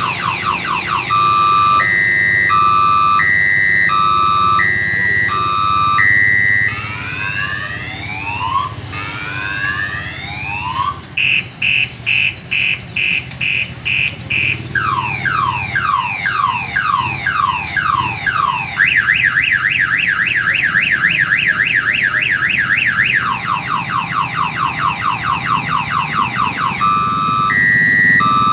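Railway level-crossing warning alarm sounding an electronic multi-tone siren, like a car alarm, that cycles through its patterns: alternating high-low two-tone beeps, then repeated rising sweeps, rapid pulsing beeps, repeated falling sweeps and a fast warble, before returning to the two-tone beeps near the end.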